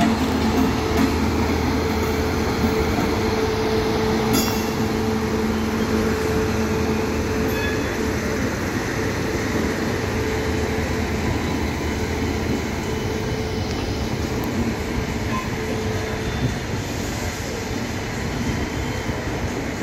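Indian Railways express train, an electric locomotive hauling LHB coaches, passing close by: a steady rumble and rattle of wheels on the rails, with a held hum in the first several seconds.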